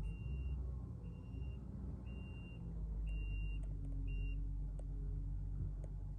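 Vehicle reversing alarm beeping five times, about once a second, over the steady low rumble of its running engine.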